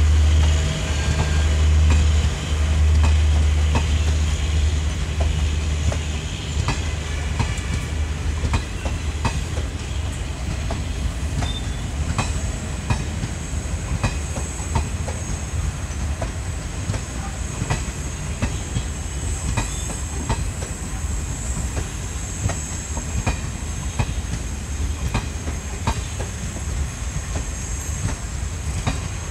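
Garib Rath express passenger coaches rolling past at speed, their wheels clicking over rail joints in a continuous irregular clatter. A heavy low rumble eases off about six seconds in.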